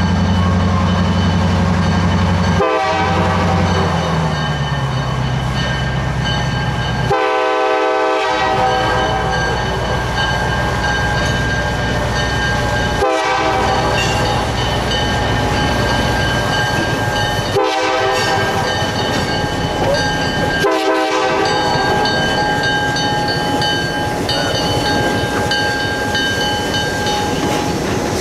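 EMD SW-800 switcher locomotive running, its diesel engine droning low and dropping in pitch a few seconds in. The horn sounds about five times, the longest blast about eight seconds in.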